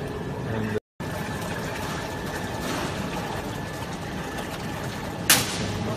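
Vacuum homogenizer mixer's pot stirrers running with a steady mechanical hum, just switched on for mixing. It cuts out for a moment about a second in, and there is one sharp knock near the end.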